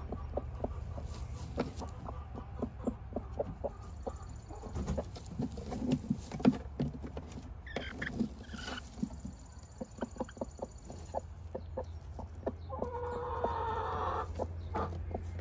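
Hen clucking: a long run of short, low clucks, then a longer drawn-out call about thirteen seconds in, over a steady low hum.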